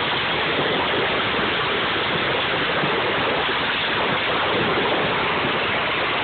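Steady rushing noise of a fast bucket ride over snow, the bucket sliding along with air streaming past, no engine note in it.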